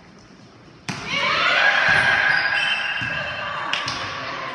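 A sharp smack of a volleyball about a second in, then several players shouting and cheering over one another, with another ball smack near the end.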